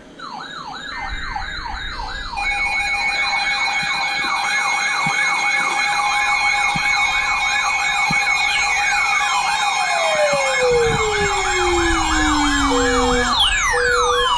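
Several sirens sounding together: one sweeps rapidly up and down about three times a second, under steady high tones and warbles that swell about two seconds in. From about eight seconds in, sirens slide steeply down in pitch, and a short repeating beep starts near the end.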